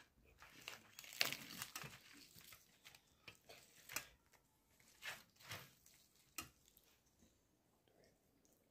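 Faint, scattered crinkling and crunching, with a few sharp crackles spaced about a second apart over an otherwise near-silent room.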